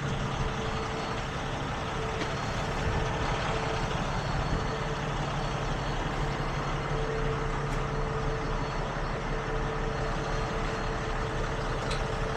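Heavy-duty tow truck's engine running steadily, with a faint constant whine over the low rumble.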